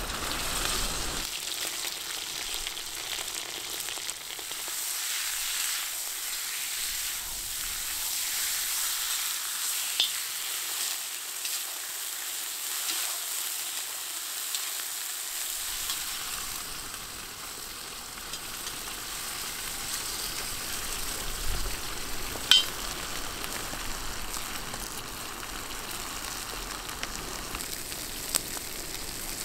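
Chunks of meat sizzling as they fry in a pot over a wood fire: a steady hiss with a few sharp pops.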